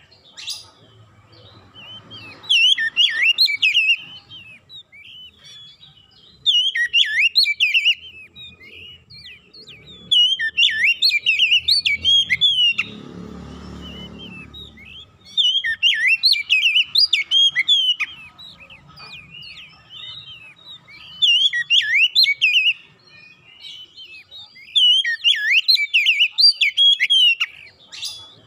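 Oriental magpie-robin (kacer) singing: repeated bursts of quick, varied whistled phrases a couple of seconds long with short pauses between. A low rumble sounds for about two seconds partway through.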